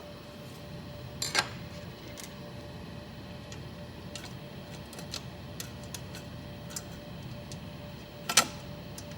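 Small metallic clicks and clinks of hand tools and parts being worked on the embroidery machine head, with two sharper, louder clacks about a second in and near the end, over a steady background hum.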